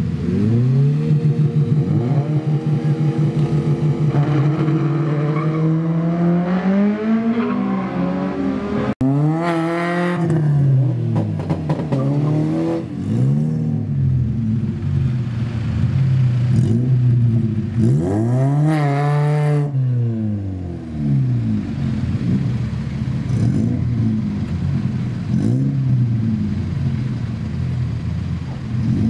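Drag race cars' engines revving at the start line. The engine holds steady for the first few seconds and then climbs in pitch. After that come repeated throttle blips that rise and fall sharply.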